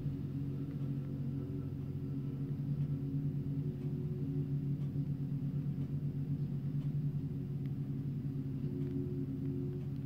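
Ride-on tandem road roller's engine and vibrating drums running on new tarmac, a steady low hum with a pulsing throb of about two beats a second in the middle, heard through window glass.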